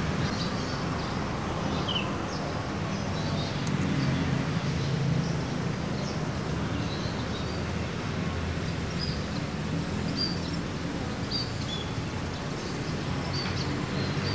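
Outdoor ambience: small birds chirping briefly now and then over a steady low rumble.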